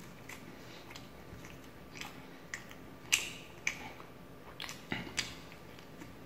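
A person chewing and smacking their lips while eating chicken, close to the microphone. It comes as a string of sharp, irregular clicks and smacks, the loudest about three seconds in.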